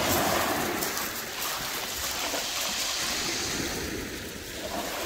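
Small sea waves washing in and out over a shingle beach at the water's edge, a steady hissing wash that is strongest near the start and eases slightly about four seconds in.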